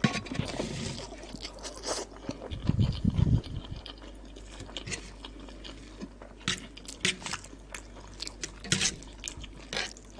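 Close-up eating sounds: crunching and chewing of Indomie instant noodles mixed with Cheetos, in a run of sharp crisp crunches, with a heavier, lower-pitched stretch about three seconds in.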